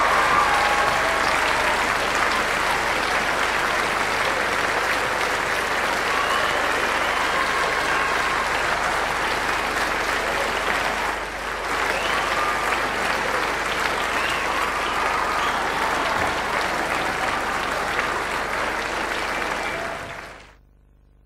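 Large theatre audience applauding a curtain call, with a few voices faintly over it; the applause fades out near the end.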